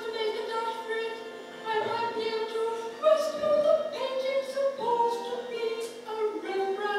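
A woman singing a hymn, holding long notes, over organ accompaniment.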